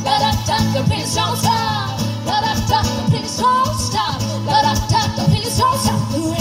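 Two women singing a pop song live to strummed acoustic guitar and a second small-bodied string instrument.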